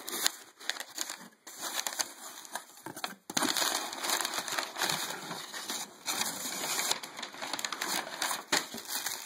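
Packaging being handled while a shipping box is unpacked: irregular crinkling and rustling of packing material, with many small crackles and a couple of brief pauses.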